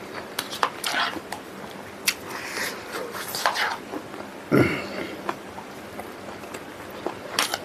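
Close-miked eating sounds: wet chewing clicks and lip smacks from a person eating smoked pork with potatoes and rice, with one louder drinking sound from a bowl held to the mouth about four and a half seconds in.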